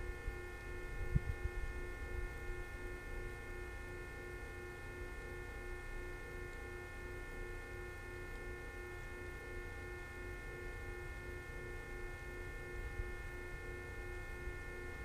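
Steady electrical-sounding hum made of several constant tones at once, over a low rumble, with a soft thump about a second in.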